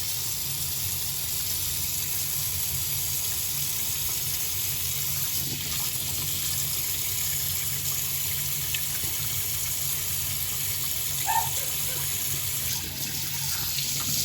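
Kitchen tap running steadily into a sink while gutted sardines are rinsed under it.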